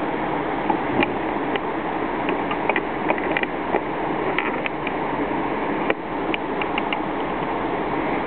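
Steady rushing of a river below, with a scatter of short sharp clicks and ticks coming in small irregular clusters.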